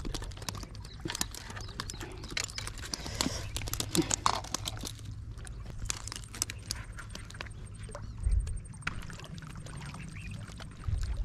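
Irregular light clicks and taps over a steady low rumble.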